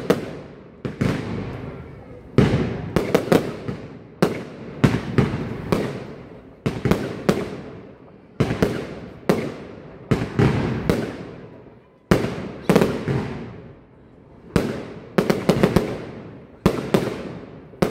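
Aerial fireworks bursting in quick succession: sharp bangs about once a second, often in tight clusters of two to four, each followed by a fading echo.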